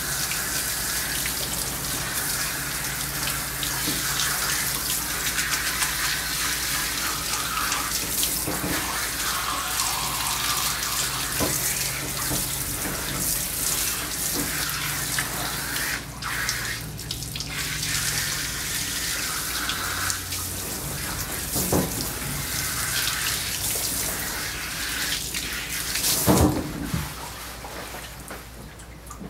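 Water hissing from a handheld bathing sprayer as it rinses shampoo out of a dog's coat, spattering into the grooming tub. A single knock comes shortly before the spray stops near the end.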